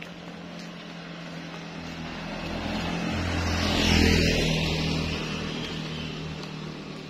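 A motorcycle approaching and passing close by: its engine and tyre noise grow steadily louder, peak about four seconds in, then fade away.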